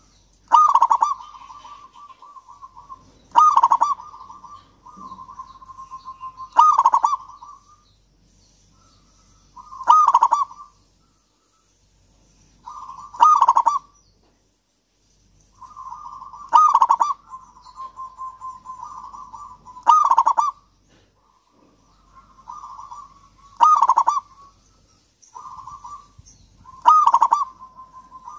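Zebra dove (perkutut, Geopelia striata) cooing its song: phrases of rapid soft coos with one loud accented note each, repeated about every three seconds.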